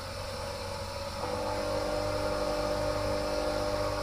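A 150-watt bench grinder's electric motor running steadily on power from a DIY battery inverter, pulling the inverter's maximum load: a steady hum and whir. A louder set of humming tones comes in about a second in.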